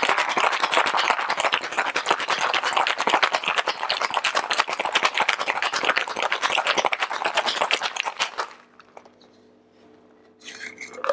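Ice rattling hard and fast inside a copper cocktail shaker as a cocktail is shaken. The shaking stops suddenly about eight and a half seconds in, and a short clatter from the shaker follows near the end.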